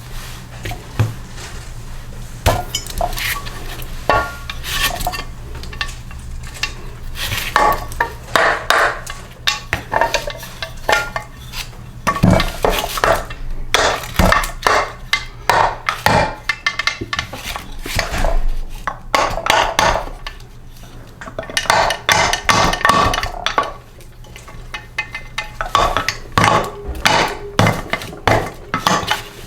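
Metal engine parts and hand tools clinking, knocking and scraping in irregular handling sounds as a small Briggs & Stratton engine is taken apart, over a steady low hum.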